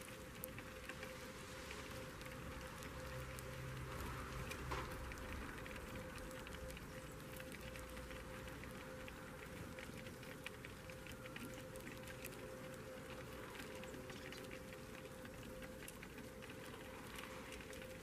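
Eurasian tree sparrows pecking seed off a feeding tray: a steady patter of many small, quick clicks.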